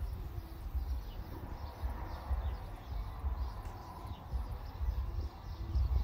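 Wind buffeting the microphone in uneven gusts, with small birds chirping here and there in short, falling notes.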